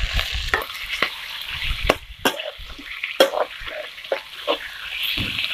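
Marinated meat sizzling as it hits hot oil in a metal kadai. A metal spatula scrapes and knocks against the pan several times as it is stirred in.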